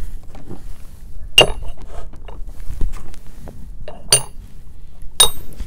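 Metal dumbbell weight plates set down and stacked on one another: three sharp metallic clinks with a short ring, about a second and a half in, at about four seconds, and near the end.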